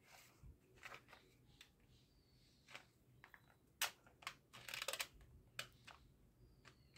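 Faint plastic clicks and rattles from a toy pump-action foam-dart shotgun being handled, with a sharper click about 4 s in and a quick run of clicks just before 5 s.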